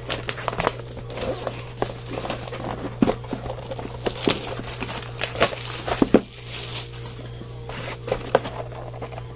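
Trading-card pack wrapper crinkling and crackling as it is handled, with scattered sharp clicks, over a steady low hum.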